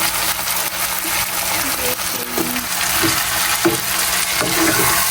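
Eggplant and vegetables sizzling steadily in a frying pan while being stirred, the spoon knocking and scraping against the pan now and then.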